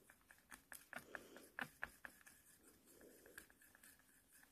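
Faint, scattered clicks and light scraping of a wooden toothpick stirring water-effect medium and ink in a plastic palette well.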